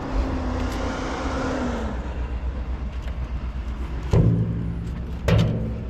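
An empty barrel knocking twice as it is set in place on a loaded vehicle, the two knocks about a second apart near the end, over a steady low rumble.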